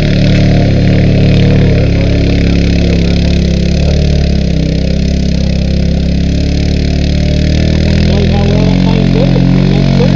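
Side-by-side UTV engine running steadily close by, its pitch holding nearly level, with a fainter engine rising and falling in pitch in the last few seconds.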